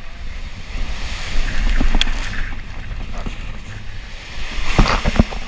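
Inflatable raft sliding fast down a fiberglass water-slide flume: rushing water and wind buffeting the microphone, with a burst of sharp splashes and knocks near the end.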